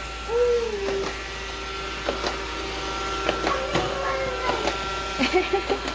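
A small child's wordless cooing and squealing, with gliding pitch, over a robot vacuum's steady motor hum. A few light knocks come through.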